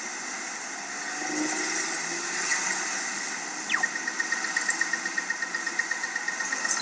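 City soundscape of layered high squealing tones over a steady hiss, with a quick falling sweep a little past halfway, after which the squeal turns into a rapid pulsing of about five beats a second.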